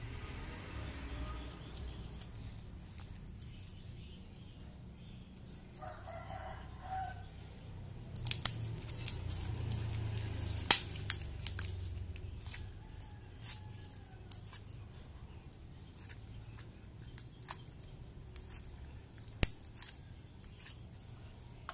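Clear slime made with liquid detergent being squeezed, stretched and folded by hand, giving sticky squelching and sharp popping clicks as air pockets burst. The pops are scattered, starting about eight seconds in, with the loudest near the start of that stretch and again near the end.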